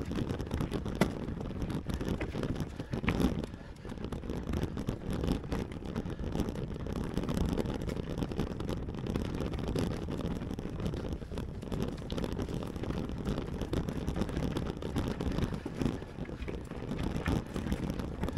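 Mountain bike ridden up a rocky climb, heard from a camera on the bike or rider: a steady low rumble of tyres and wind on the microphone, with a few sharp knocks as the bike strikes rocks, the clearest about a second and three seconds in.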